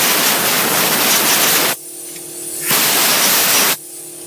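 Aerosol brake cleaner sprayed onto the brake parts in two long bursts. The spray hiss cuts off sharply after almost two seconds, starts again about a second later, and stops shortly before the end.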